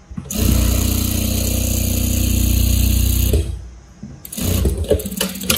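Industrial sewing machine stitching steadily through cotton fabric for about three seconds, then stopping. About a second later comes a shorter, choppier run of the machine with clicking.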